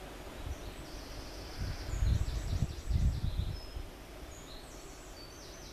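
Outdoor ambience of small birds singing, with high whistled notes and quick trills, over a low rumble that swells for about two seconds in the middle.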